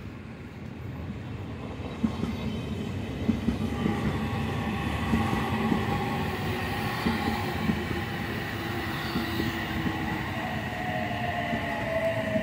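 Odakyu 3000 series electric train running in along the platform, with a low rumble and irregular clacks of wheels over the rail joints. A motor whine drops in pitch near the end as the train slows.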